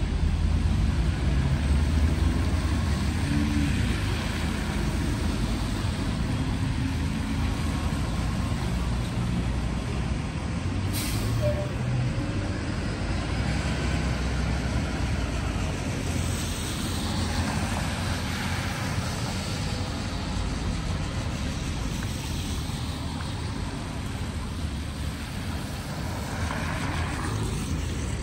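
Hybrid-electric city bus running at a stop and then pulling away, its low rumble slowly fading, with a short hiss of air from the brakes about eleven seconds in. Cars pass with tyres hissing on the wet road.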